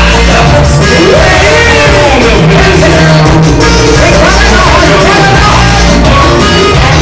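Loud live band music: a singer over keyboards and a steady bass line.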